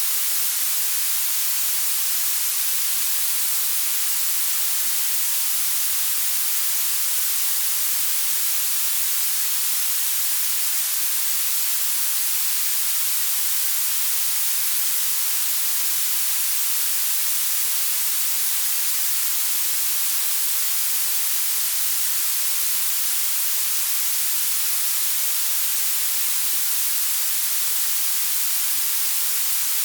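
Blue noise: a steady, unchanging hiss weighted toward the high end, bright and thin with almost no bass.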